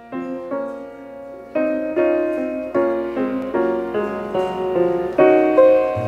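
Background piano music: a melody of single struck notes, each one sounding and dying away before the next.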